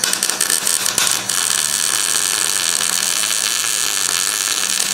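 MIG welder arc welding car-body sheet metal, crackling and hissing. It stutters through the first second, then runs as one steady bead.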